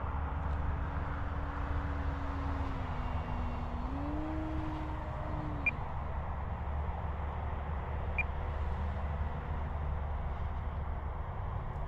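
Electric RC aerobatic plane (E-flite Extra 330SC) in flight, its brushless motor and propeller giving a thin whine that rises and falls in pitch as the throttle and distance change, over a steady low background rush. Two brief high ticks sound in the middle.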